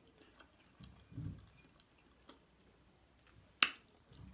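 Faint close-up eating sounds: soft chewing, with a low thud about a second in and one sharp mouth click near the end as a piece of food goes into the mouth.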